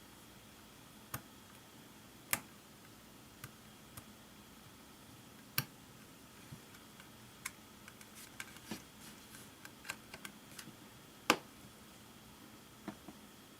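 Irregular light clicks and taps of small parts and tools being handled while an iPod is put back together after a battery swap. The taps come thicker in the middle, and the sharpest click falls near the end.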